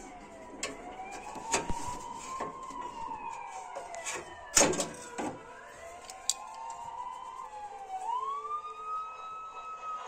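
A wavering siren-like tone sliding slowly and unevenly up and down, over a few sharp metal clicks as the fittings of an old electric fireplace are handled; the loudest click comes about halfway through.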